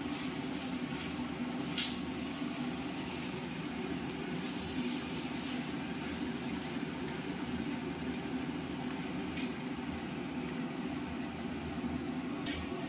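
Steady low hum with an even hiss over it and a few faint light clicks, the kind of background a pan of masala frying on the stove gives.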